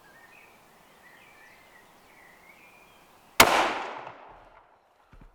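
A single shot from a Weatherby Vanguard bolt-action rifle, a sharp crack about three and a half seconds in that rings out and dies away over about a second.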